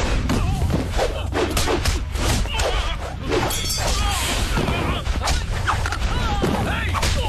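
Film fight sound effects: a rapid run of punch and kick impacts and whooshes, with men grunting and shouting over a low, steady drone.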